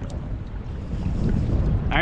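Wind buffeting the microphone: a steady, dense low rumble, with a few faint ticks over it.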